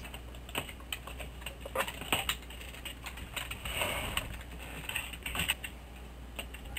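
Computer keyboard being typed on: irregular keystroke clicks, with a steady low hum underneath.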